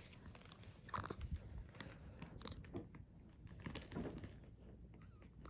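Faint rustling with a few scattered sharp clicks, about four in all, from capuchin monkeys moving about and playing.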